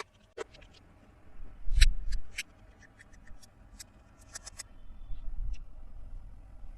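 Plastic toy playset pieces being handled: a scatter of light clicks and taps, with soft low bumps about two seconds in and again near five seconds.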